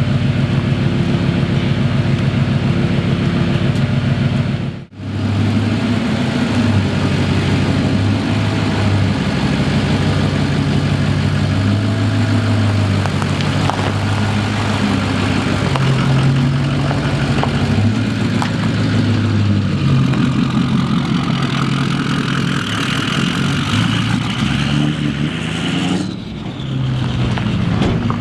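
Ford 6.0 Powerstroke turbo-diesel V8 truck running hard, its engine note stepping up and down in pitch as it accelerates. There is a sudden brief break about five seconds in.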